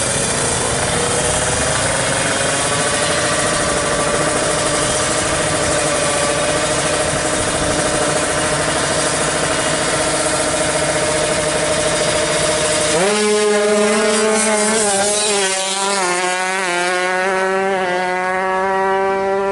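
Two-stroke drag-bike engine running at high revs, its pitch creeping up slowly. About thirteen seconds in, it cuts abruptly to music with a wavering melody.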